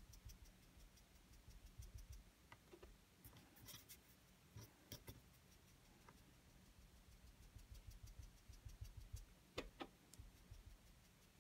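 Faint, quick rubbing of a foam ink-blending tool worked over paper and a paper mask, applying Distress ink, with a few soft clicks in the middle and near the end.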